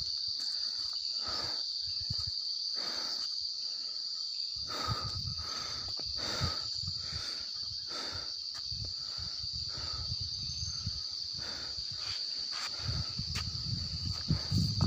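Crickets trilling steadily at a high pitch, with soft footsteps on grass every second or so and a low rumble coming up near the end.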